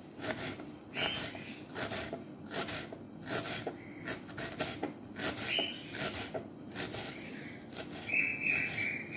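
Small kitchen knife knocking on a wooden cutting board as shallot is finely chopped, in irregular strokes about two a second. A brief higher-pitched sound comes near the end.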